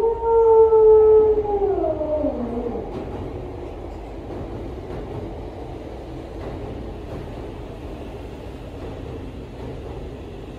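Shinkansen bullet train: a loud pitched tone is held for about a second and a half, then slides down in pitch. Steady train running noise follows.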